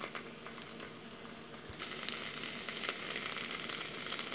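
Olive-oil-soaked bread with an egg in its centre (egg in the hole) frying in a pan: a steady sizzling hiss with many small crackling pops.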